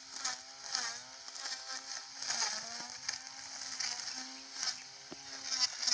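Battery-powered brush cutter's electric motor whining as it cuts grass, its pitch dipping briefly again and again as the cutting head takes load, over a high hiss.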